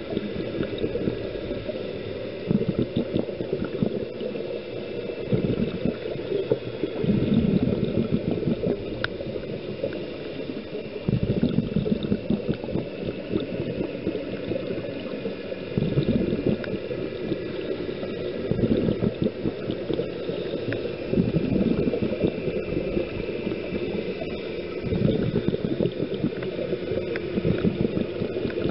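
Scuba diver breathing underwater: bursts of exhaled bubbles from the regulator gurgling every few seconds over a steady underwater rumble.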